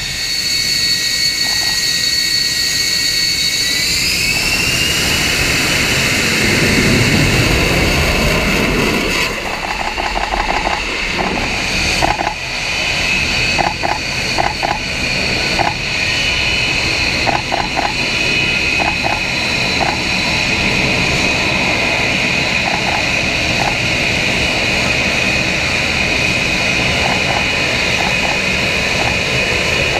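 F-35B Lightning II jets' F135 engines running at high power with a steady high whine that rises in pitch about four seconds in and then holds, with a deep rumbling swell a few seconds later. Short faint chirps repeat now and then through the middle.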